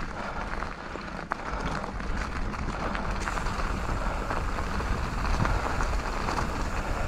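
Mountain bike tyres rolling over loose, pebbly trail ground: a steady gritty crackle with small knocks and rattles, getting louder about three seconds in.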